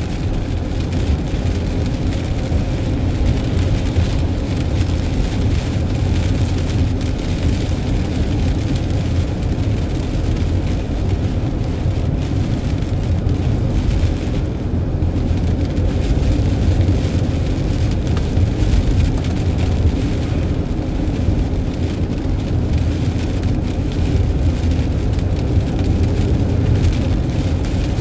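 Steady road noise of a vehicle driving on a wet motorway in the rain: a low rumble with a hiss of rain and tyre spray on top. The hiss thins briefly about halfway through.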